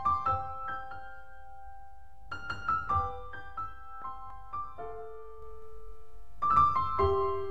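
Background piano music: slow, sustained notes that sound in groups every few seconds.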